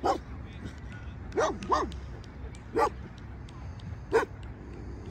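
Off-leash dog barking at a person walking her leashed dog: five short single barks, irregularly spaced, two of them close together about a second and a half in.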